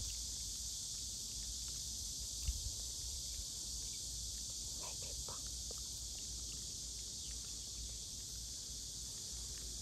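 Steady, high-pitched chorus of summer insects droning without a break, with a low rumble underneath and a short thump about two and a half seconds in.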